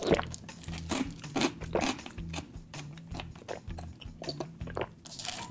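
Close-miked mouth sounds of drinking a bottled fresh-milk bubble tea: wet sips and swallows and chewing of tapioca pearls, a string of irregular small clicks.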